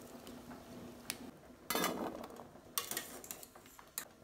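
Steel wire strainer ladle scooping boiled potato cubes out of a steel pot and tipping them onto a steel plate, with a few short metal clinks and clatters about two, three and four seconds in.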